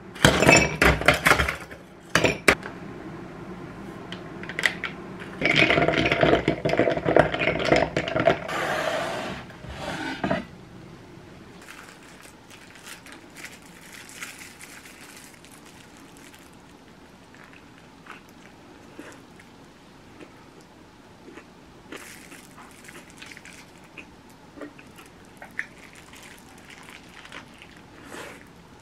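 Ice cubes dropped into a glass mug, clinking against the glass, at the start. About five seconds in comes a louder stretch of several seconds, most likely a drink being poured over the ice. After that only faint, scattered eating sounds: quiet chewing and a few light clicks.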